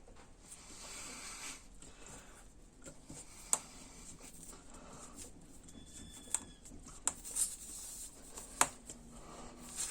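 Tire repair kit's reamer tool being worked into a tubeless tire puncture, rasping the hole larger and cleaning the rubber inside: faint rubbing and scraping with a few sharp clicks, the loudest about three and a half and eight and a half seconds in.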